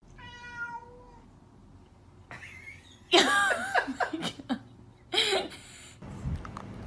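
A domestic cat meowing: a short meow at the start, then a louder run of meows about three seconds in and one more about two seconds later.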